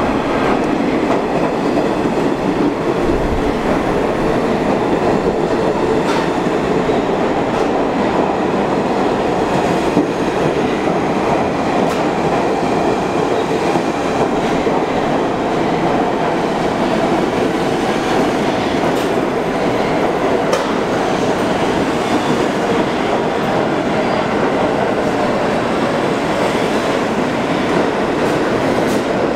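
R46 subway train pulling into an underground station and running along the platform past the listener: a loud, steady noise of wheels and running gear on the rails, with a few sharp clicks here and there.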